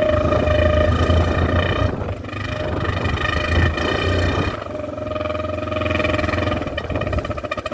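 Air horn wedged into a Yamaha TT-R230 dirt bike's exhaust, blaring a steady horn tone as the exhaust gas drives it, over the single-cylinder engine's low rumble. It sounds in three long blasts as the engine is run.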